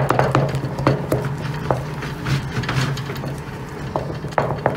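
Wooden spoon stirring a wet cornstarch slime mixture in a bowl, with irregular small clicks and scrapes of the spoon against the bowl. A steady low hum runs underneath.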